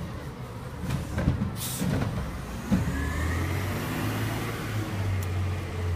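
Heil garbage truck running close by, its engine a steady low drone that grows firmer from about halfway through, with a brief hiss about one and a half seconds in and a few knocks early on.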